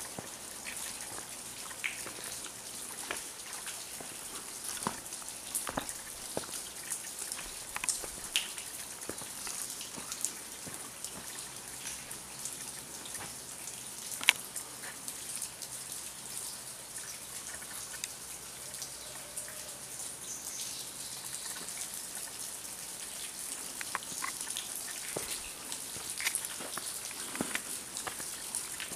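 Water drops falling from the mossy rock overhang of a cave, pattering irregularly onto leaves and wet ground over a steady hiss, with one sharper tap midway.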